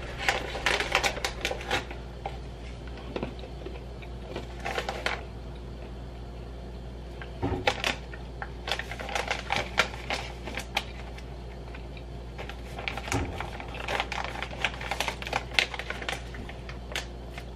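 A plastic snack pouch crinkling in clusters of crisp clicks as it is opened and handled, mixed with crunchy chewing of mini Belgian waffle snacks.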